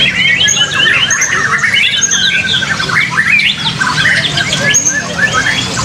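Several white-rumped shamas (murai batu) singing at once, a dense, overlapping mix of quick whistles, rising and falling notes, chatters and squawks, over a steady low hum.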